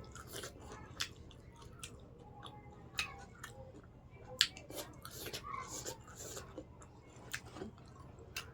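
Close-miked mukbang eating sounds: a person chewing and biting food, with scattered sharp mouth clicks and smacks and a stretch of wetter, crackly chewing about five seconds in.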